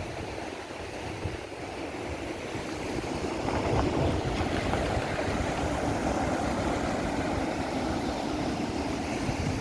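Steady rushing of sea surf and wind, swelling about three seconds in and then holding.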